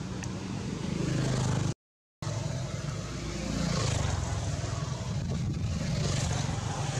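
A motor vehicle's engine runs steadily nearby, a continuous low rumble over broad noise. About two seconds in, the sound drops to dead silence for about half a second at an edit.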